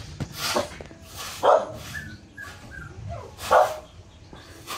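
A dog barking: three short, separate barks about one to two seconds apart, with another starting right at the end.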